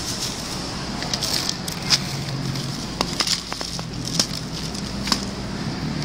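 Dry cat kibble shaken out of a plastic bag onto a sheet of paper, with scattered sharp clicks and patters as pieces land.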